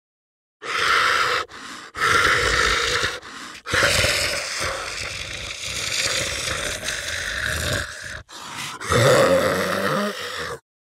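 Zombie breathing sound effect: heavy, rasping breaths, loud exhales alternating with short quieter inhales. The last breath, near the end, turns into a low voiced groan.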